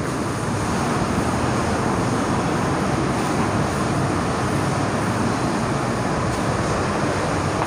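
Steady background noise with a cloth duster rubbing writing off a whiteboard.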